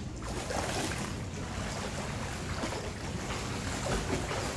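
Water splashing from a child swimming freestyle in a pool: irregular splashes of kicks and arm strokes that begin just after the start and carry on steadily. Wind rumbles on the microphone underneath.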